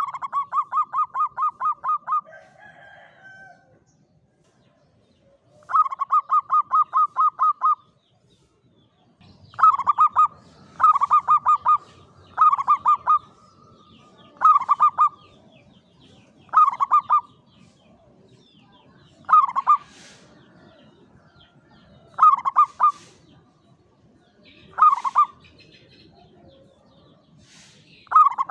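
Zebra dove (perkutut) cooing: a long run of about a dozen quick staccato notes at the start, a second run about six seconds in, then from about ten seconds in shorter phrases of a few notes each, coming every one to three seconds and spacing out toward the end.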